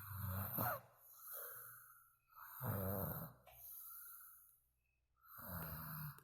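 A person snoring: three loud, buzzing snores about two and a half to three seconds apart, with softer airy breaths between them. The first snore ends in a short rising whistle.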